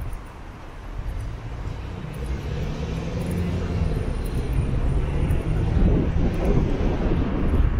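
A vehicle's engine hum and noise building steadily louder as it approaches.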